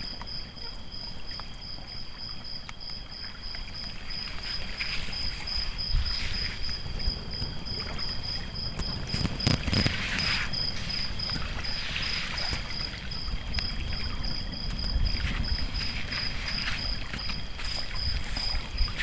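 Night insects, crickets, chirping in a steady, evenly pulsed high trill, over lake water lapping and sloshing at the shore.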